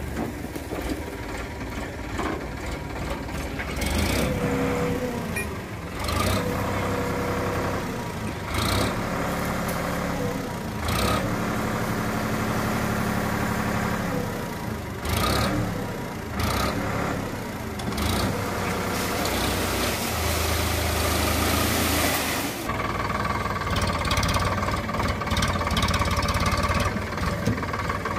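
Sonalika DI 60 tractor's diesel engine running steadily while its tipping trolley dumps a load of red soil and rocks, with scattered knocks and clunks as clods fall.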